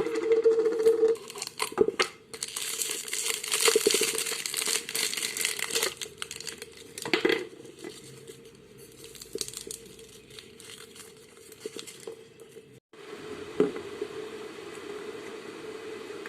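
Slime being squeezed and stretched by hand, giving a crackling, crinkling run of small clicks, densest a few seconds in, with a sharp crackle a little past the middle. A faint steady hum runs under it at the start and again near the end.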